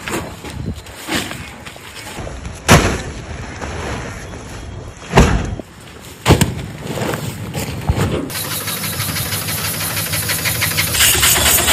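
Matchstick-factory machinery: a few sharp, loud knocks in the first half, then from about eight seconds in a fast, even mechanical clatter that grows louder near the end.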